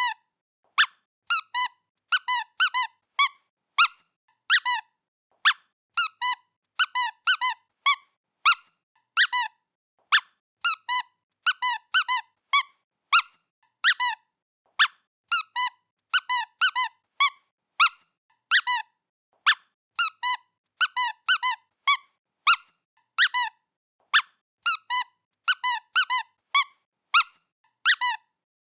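A squeaky cat toy squeaking over and over in short, high squeaks, often two in quick succession, about one and a half squeaks a second.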